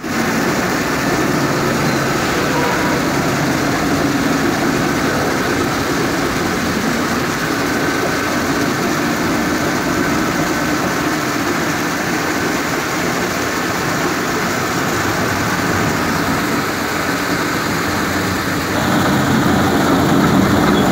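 Breton Levibreton ONE PLUS stone-polishing machine running steadily, its rotating polishing head working across a marble or granite slab. The noise gets louder near the end.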